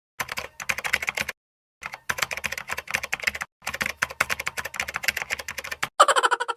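Typing sound effect: rapid keyboard key clicks in several runs separated by short pauses, laid over text being typed out. A short pitched sound effect follows near the end.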